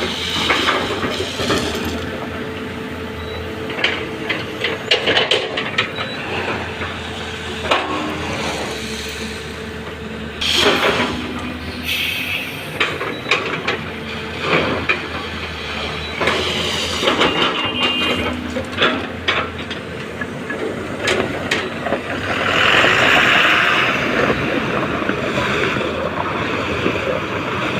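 Heavy diesel machinery, an excavator and a tipper truck, running steadily at a loading site, with repeated metallic knocks and clanks and a loud hiss about 22 seconds in.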